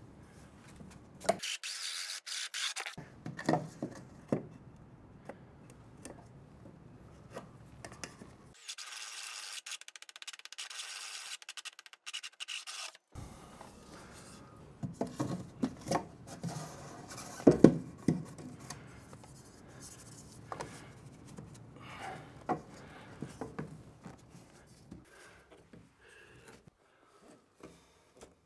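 Oscillating multi-tool cutting through a plastic drain pipe in two bursts, a short one about a second in and a longer one of about four seconds. Then a run of sharp knocks and clatter as the cut pipe and fittings are handled, the loudest knock about halfway through.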